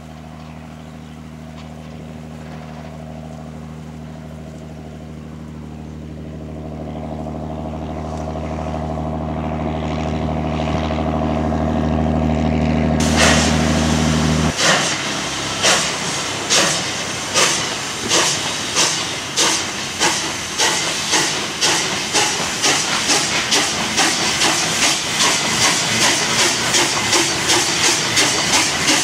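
A narrow-gauge MBxd2 diesel railcar's engine running steadily and growing louder as it approaches. About halfway through, this gives way to a standard-gauge steam locomotive getting under way: steam hisses from its cylinders and loud exhaust chuffs come quicker and quicker.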